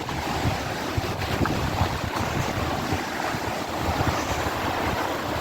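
Strong gusting wind blowing across the microphone: a steady rush of noise with a heavy low rumble of buffeting.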